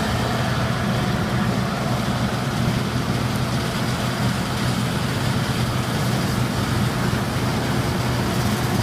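Combine harvester running steadily at working speed, a constant engine hum under a wide mechanical rush of threshing and moving parts.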